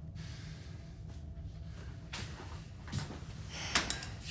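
Low steady hum under quiet rustling and a few soft knocks as things on a closet shelf are handled and moved about, the sharpest knock near the end.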